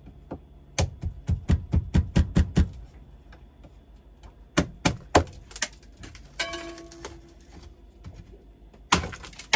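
A metal hand tool chipping and prying at thick frost in a boat fridge's freezer box: a quick run of sharp taps at about five a second, then a few scattered knocks later. The frost has built up because the fridge has not been defrosted.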